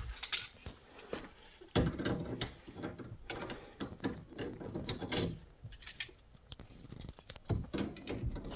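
Irregular metal clicks and scraping from a TracPipe CSST gas fitting being worked and tightened, its nut drawing the stainless steel corrugated tubing into the tapered seat to make the seal.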